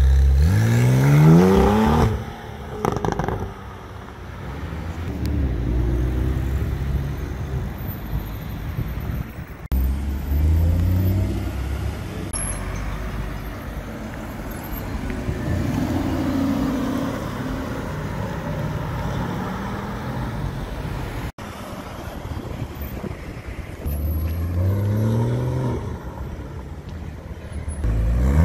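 Supercar engines accelerating hard away one after another, each note rising in pitch through the gears: a Porsche 911 Targa 4 GTS's flat-six first, then an Aston Martin DB11.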